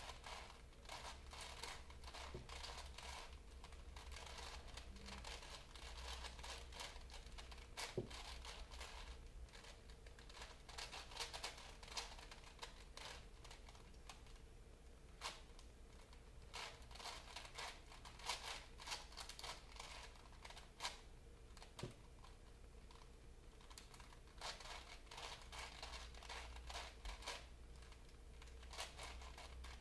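Faint paper crinkling and rustling in quick, irregular scrapes and small clicks as small folded paper pieces are handled and pushed together, over a low steady hum.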